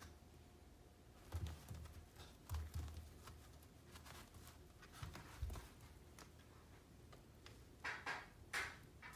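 Sheepadoodle puppies playing on a carpet: quiet scuffling and a few dull thumps. Near the end, as the two puppies wrestle, come three short, louder sounds in quick succession.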